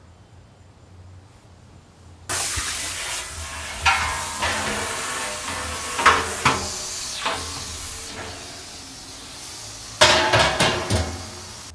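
Stainless-steel brewing pots and lids clanking as they are handled, over a hiss that starts suddenly about two seconds in and slowly fades. A quick run of sharper metal clanks comes near the end.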